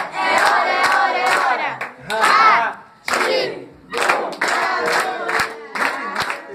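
A small group singing and chanting a birthday song in loud phrases, with rhythmic hand clapping throughout.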